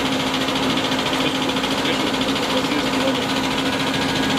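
Diesel injection pump test bench running: a steady machine hum with an even hiss over it.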